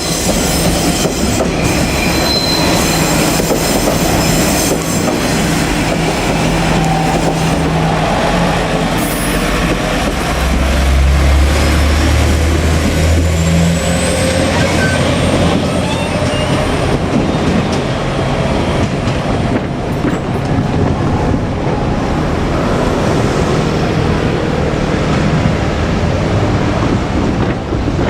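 JR Kyushu KiHa 47 diesel railcar set running by, with the diesel engine's low drone and the wheels running and clattering on the rails. The engine drone is strongest about halfway through.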